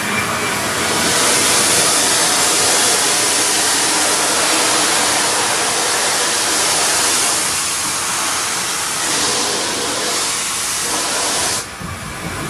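Steam hissing loudly and steadily from the Flying Scotsman steam locomotive, swelling about a second in and cutting off suddenly near the end.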